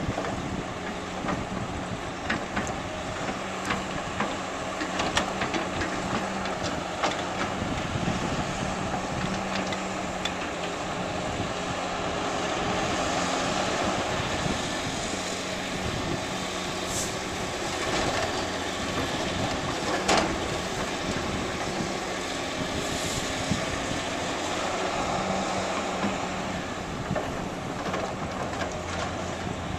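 Heavy diesel construction machinery running steadily, with scattered clanks and knocks, one louder knock near two-thirds of the way through.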